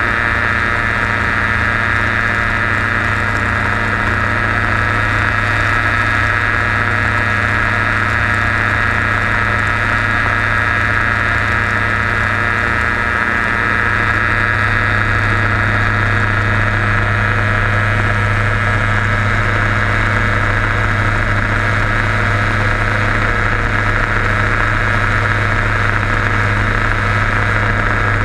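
Quicksilver Sport 2S ultralight's two-stroke engine and pusher propeller running steadily in cruise flight, a constant loud drone.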